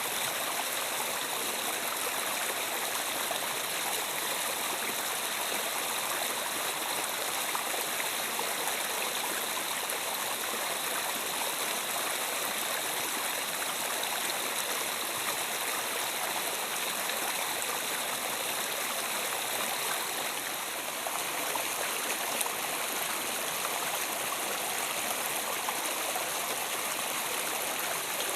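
River water flowing over rocks: a steady rushing babble, with a brief slight dip about two-thirds of the way through.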